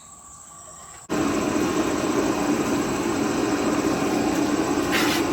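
Shop vac switched on about a second in, its motor then running steadily with a loud rushing hum.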